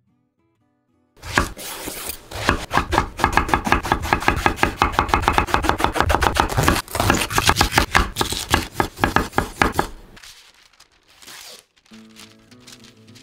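Kitchen knife slicing an eggplant on a wooden cutting board in rapid, even strokes, starting about a second in and stopping after about ten seconds. Softer rustling of baking paper follows, with light music coming in near the end.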